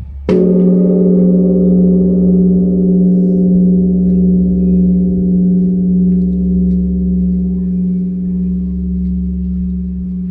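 Large Korean bronze temple bell (beomjong), struck once with a wooden log a moment in. It rings on with a deep hum and several steady overtones that slowly fade, the ring gently waxing and waning.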